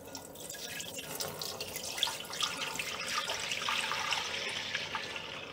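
Watermelon juice pouring in a steady stream from a glass measuring cup into a large, empty soup pot and splashing on its bottom. The splashing eases off near the end.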